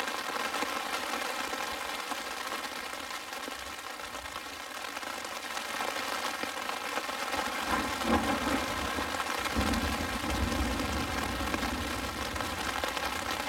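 Steady rain on a tent with a tarp over it. Low thunder rumbles about eight seconds in and again from about ten seconds on.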